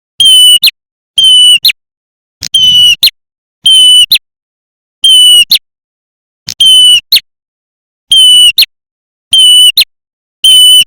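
Lure recording of prenjak merah klawu calls, played loud: a short high steady note ending in a quick upward flick, repeated about once a second, nine times, each call alike as in a loop.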